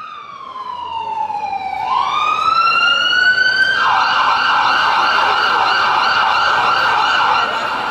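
Ambulance siren sound effect: a slow wail that falls and then rises, switching a little under four seconds in to a fast warbling yelp that cuts off near the end.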